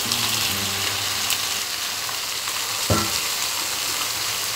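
Cut eggplant pieces tumbling into a hot wok of frying spices, with a steady oil sizzle, then a wooden spatula stirring them through. A short sharp knock comes about three seconds in.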